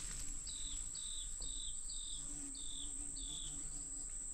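Insects calling in vegetation: a steady high-pitched trill held throughout, with a short falling chirp repeated about twice a second.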